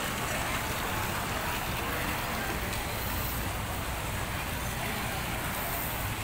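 Steady background hubbub of a crowded outdoor plaza: indistinct voices of many passers-by blended into an even hiss over a low rumble.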